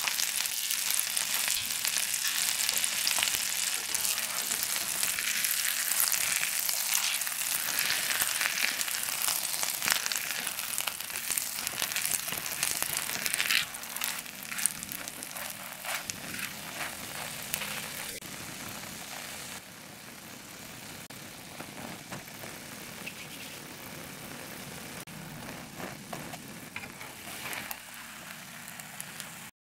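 Butter sizzling and crackling in a frying pan under a slice of egg-topped toast. The sizzle drops to a quieter level about halfway through, with a few light clicks.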